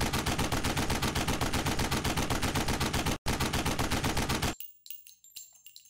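Machine-gun fire sound effect: a fast, even burst of automatic gunfire, about eight shots a second, with a short break about three seconds in. It cuts off suddenly about four and a half seconds in, leaving a few faint clicks.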